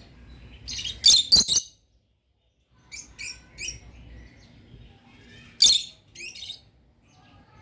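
Pet lovebirds chirping in clusters of sharp, high chirps. Loud bursts come about a second in and again past the middle, with softer chirps between and a brief total dropout shortly after the first burst.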